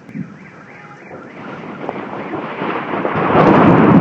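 Thunder rumbling in a thunderstorm, swelling from quiet to loud over the second half, with rain.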